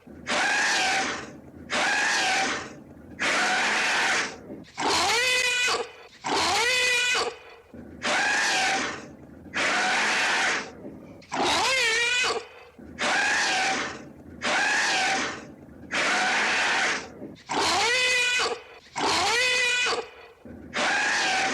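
Elephant trumpeting: a long run of short, loud blasts at an even pace, about one every second and a half, several with a wavering, warbling pitch.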